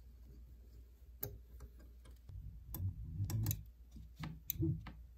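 3D printer endstop microswitch clicking as it is pressed by hand: irregular sharp clicks starting about a second in, with dull knocks of handling against the printer frame between them in the second half.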